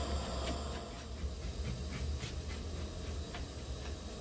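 Knife blade scraping the hair off a scalded goat carcass's skin in short, irregular strokes, several a second.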